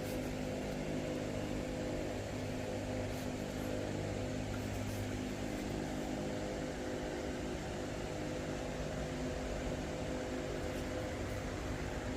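Steady machine hum with several steady low tones over an even hiss.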